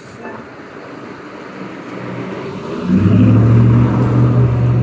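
Automated side-loader garbage truck's engine revving up sharply about three seconds in to a steady low drone, as its hydraulic arm lifts a wheelie bin and tips it into the hopper.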